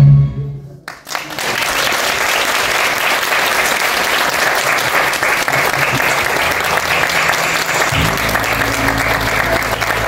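Music with singing stops at the start. After about a second of quiet, an audience breaks into steady applause. Near the end, low steady musical tones come in beneath the clapping.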